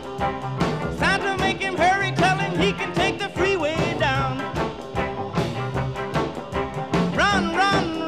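Upbeat background music with a fast, steady beat and a melody line that swoops up and down.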